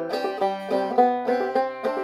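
Five-string banjo played clawhammer style in double C tuning: a quick, steady run of plucked, ringing notes.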